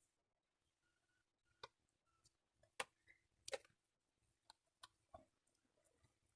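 Faint, scattered clicks and crackles from electrical tape being wound around a twisted wire splice, about six over a few seconds.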